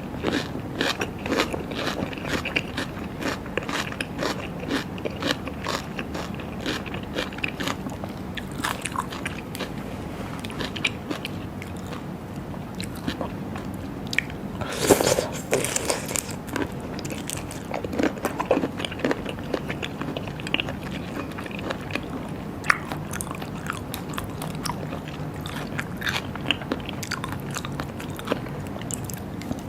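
Close-up eating sounds: chewing and crunching of raw seafood, with many small sharp clicks and a louder bite about halfway through.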